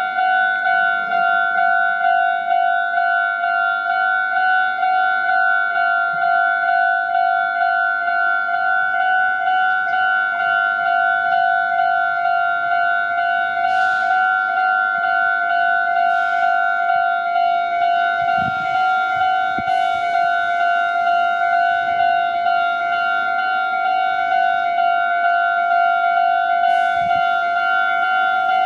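Japanese railroad crossing warning bell ringing continuously, a high electronic ding repeating about twice a second, signalling that a train is approaching. A few brief rushes of noise come through partway through.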